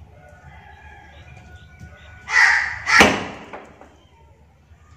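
Meat cleaver chopping a cow trotter on a wooden log chopping block: two heavy strikes close together, about two and a half and three seconds in, the second a sharp, deep thud into the wood.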